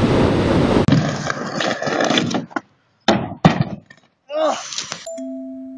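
Breaking surf and wind on the microphone, then, after a cut, scraping and a loud hard thump of a person falling on a skate ramp, followed by a short voice. Gentle glockenspiel-like music begins near the end.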